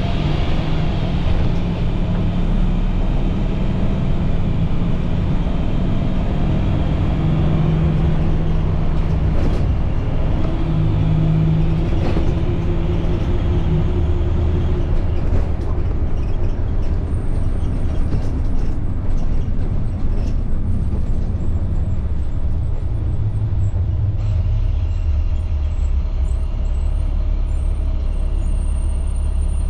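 IC CE300 school bus's MaxxForce DT inline-six diesel engine running, heard from inside the bus as a steady low drone with road rumble. About three-quarters of the way through, the engine note changes and settles lower.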